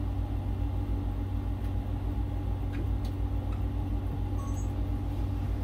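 A machine running steadily: a low rumble with a fast, even pulse, under a constant hum.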